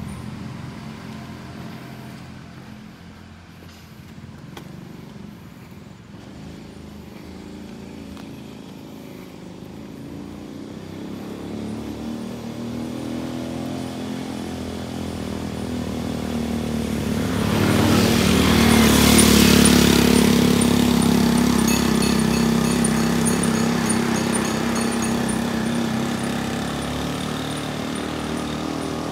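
A motorcycle engine running as it comes up from behind, growing louder over several seconds, passing close with a brief rush about two-thirds of the way in, then fading as it moves off ahead.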